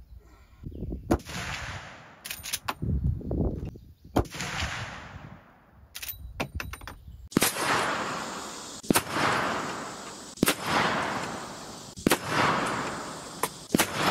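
A series of rifle shots from a Marlin 1895 Trapper lever-action .45-70 firing subsonic 410-grain loads. Each shot is a sharp report with a long echoing tail. From about halfway through, the shots come roughly every second and a half.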